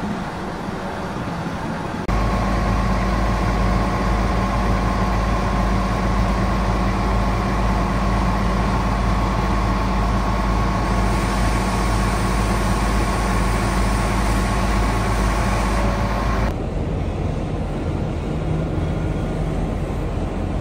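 Grove TM1500 truck crane's diesel engine running steadily, a low hum with a higher steady whine over it. It gets abruptly louder about two seconds in and drops back near the end.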